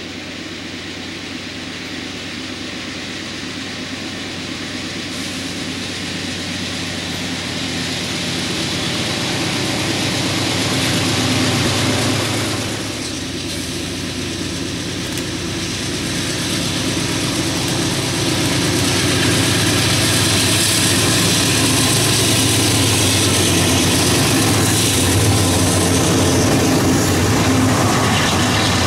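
Diesel-electric freight locomotives, a CSX GE C40-8W leading, run with a steady engine drone that grows louder as the train approaches and passes close by. Near the end the rumble of the empty freight cars rolling over the rails joins in.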